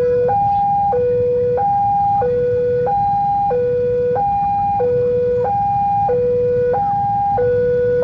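Railway level-crossing warning alarm sounding a steady electronic two-tone hi-lo, high and low notes alternating about every two-thirds of a second, over a low rumble of idling road traffic.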